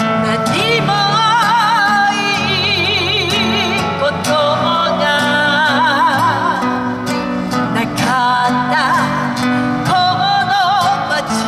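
Two acoustic guitars strummed and picked, amplified through a PA, while a man sings with strong vibrato.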